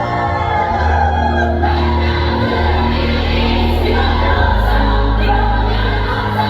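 A song playing, with many voices singing together over a steady, sustained bass line.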